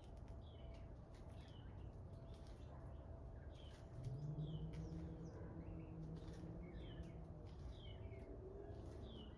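2016 Amana heat pump running in heat mode with a low, steady hum. About four seconds in, a deeper hum with overtones sets in, rising briefly and then holding steady. Birds chirp over it, short falling chirps repeating every second or less.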